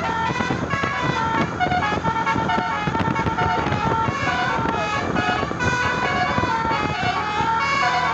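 Bus 'telolet basuri' musical air horn playing a continuous melody of stepped notes, over the rumble of vehicle engine and road noise.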